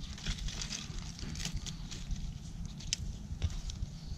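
Scissors snipping through garden leaves, with a few short, separate snips and clicks and soft rustling of the leaves being handled.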